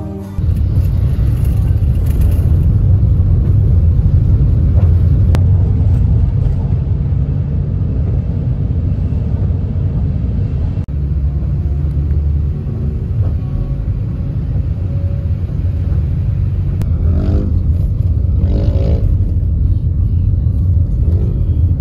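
Steady low rumble of a car driving, heard from inside the cabin: engine and tyre noise.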